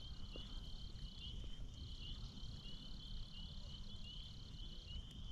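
A steady high-pitched chorus of small calling animals: two overlapping trills, one even and one pulsing. The even one drops out for about half a second around a second and a half in, then stops near the end.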